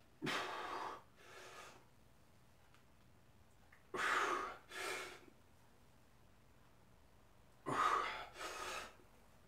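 A man breathing hard and forcefully through barbell front squat reps: three pairs of breaths, one pair about every four seconds.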